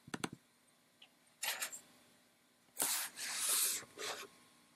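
Camera handling noise: a few sharp clicks, then rubbing and hissing bursts, the longest lasting about a second, as the camera is picked up and turned.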